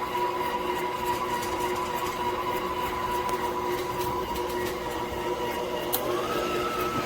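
COOKLEE 660 W stand mixer's motor running steadily with the dough hook, a steady mechanical whine. Near the end a click is followed by the whine rising slightly in pitch as the motor speeds up.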